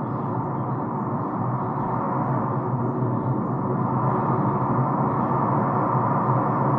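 Background ambient music: a steady low drone of held tones, slowly getting louder.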